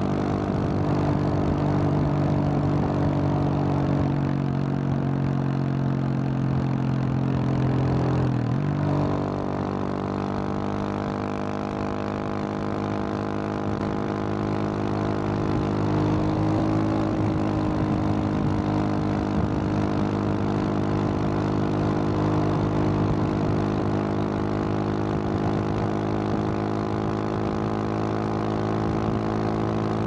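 2021 Husqvarna 701 Supermoto's single-cylinder engine, breathing through a Wings aftermarket exhaust, running steadily at road speed, with a short break and change in the engine note about eight and a half seconds in. Wind rushes over the microphone underneath.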